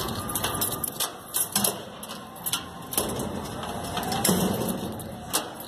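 A handful of irregular sharp clicks and knocks over low outdoor background noise.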